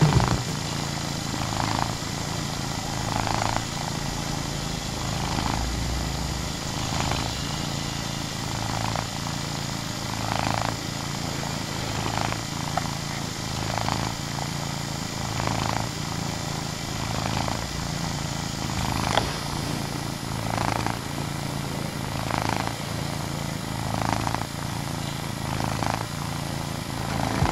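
Domestic cat purring close to the microphone: a steady low rumble with a soft breath swelling in and out about every second and a half to two seconds.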